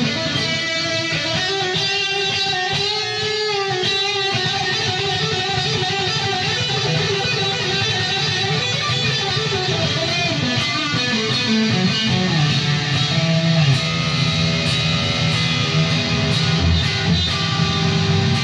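Harley Benton Fusion II electric guitar, neck pickup split to single-coil, played through a Mesa/Boogie JP-2C's high-gain lead channel into a 4x12 cabinet loaded with Celestion Vintage 30s. It plays a distorted lead line of sustained notes with bends and vibrato.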